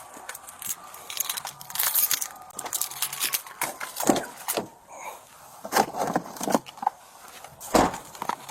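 Irregular jangling and clinking of handled metal gear, close to a body-worn microphone, in uneven clusters of sharp clicks with one louder clack near the end.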